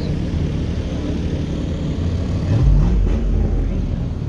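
A car engine briefly revving, its pitch rising quickly about two and a half seconds in, over a steady low rumble.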